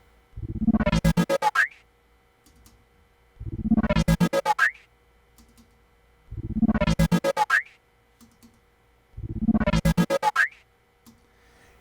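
Synthesized sound effect built in Logic Pro X, with a tape-style slowdown at its end, played back four times. Each pass is about a second and a half of fast, evenly pulsing synth tones, with short pauses between.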